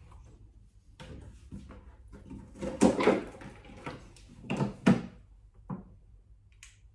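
Large plastic water jug being picked up and its screw cap twisted off: irregular clunks and crinkles of thin plastic, loudest about three seconds in and again around five seconds.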